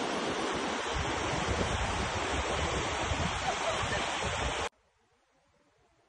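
Wind buffeting the phone's microphone, a dense steady rush with gusty low swells, that cuts off suddenly about three-quarters of the way in.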